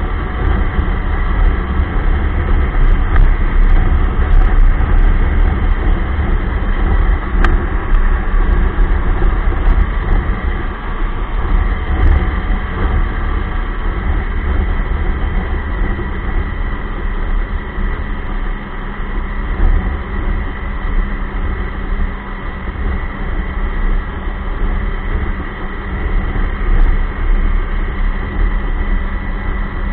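Ski-Doo Expedition LE snowmobile running under way: loud, steady engine and track noise that rises and falls a little with the throttle.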